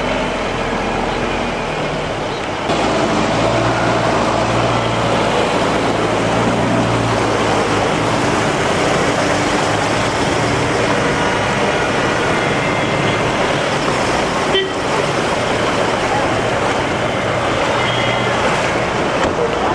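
Motor vehicles driving slowly through a flooded street: engines running under a steady swish of churned floodwater, with a few short car-horn toots. It gets louder about three seconds in.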